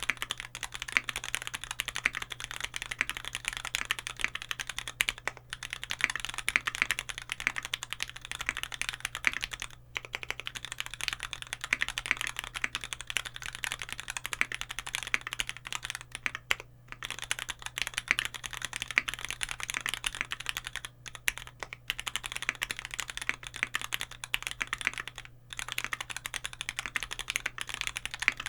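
Continuous typing on a Keycult No.2 aluminium, gasket-mount mechanical keyboard with lubed vintage Cherry MX Nixie switches and GMK keycaps, the keystrokes running together with a few short pauses.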